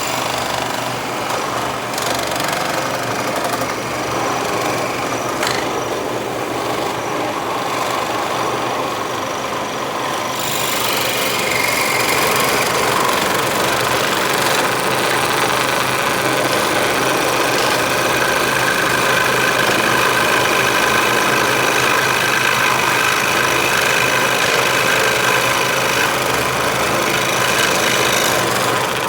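Electric scroll saw running, its reciprocating blade cutting wood with a steady buzzing rattle that grows louder and brighter about ten seconds in.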